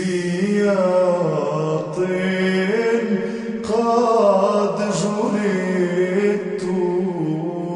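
Slow chanted singing: a voice holding long notes that glide between pitches, with brief breaks between phrases.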